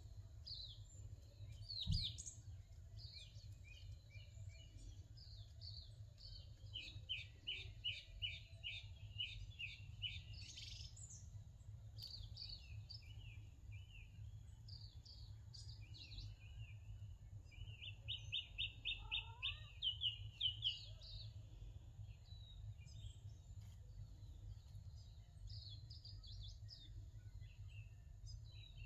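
Small birds chirping and singing, with two runs of quickly repeated notes, one about seven seconds in and one near eighteen seconds, over a low steady rumble. A single sharp thump about two seconds in.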